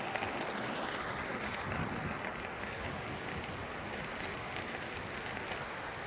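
Steady rushing noise of a Ninebot electric ride-on being ridden off-road: wind on the microphone and tyres rolling over rough ground, with no motor tone standing out.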